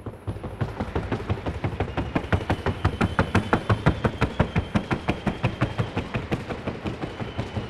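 Trocha horse's hooves striking a wooden sounding board in a rapid, even, drumming rhythm of the four-beat diagonal trocha gait. It starts abruptly and stops just before the end as the horse comes off the board.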